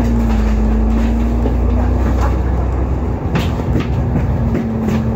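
Alexander Dennis Enviro500 MMC double-decker bus running, heard from on board: a steady low engine drone with a constant whine over it. The drone eases and turns rougher about three seconds in, with a few light interior rattles.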